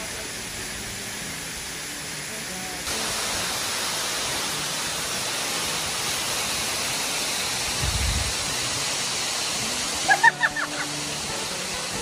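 Steady rushing of the roughly 60-metre Tagbo Falls waterfall pouring into its pool, an even noise that steps up a little about three seconds in. A brief low bump comes near eight seconds, and a few short high-pitched calls sound about ten seconds in.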